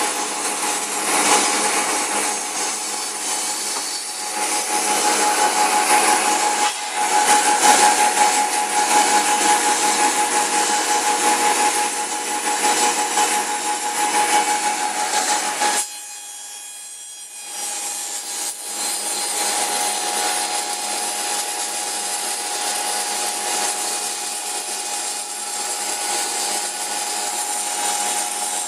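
Double-head cutting machine running, its blades spinning with a steady whine over a rough cutting noise. About 16 seconds in the sound drops off sharply for roughly two seconds, then the machine runs on.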